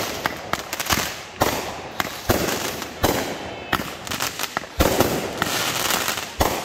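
Aerial fireworks bursting overhead: an irregular rapid series of sharp bangs with a dense hiss between them.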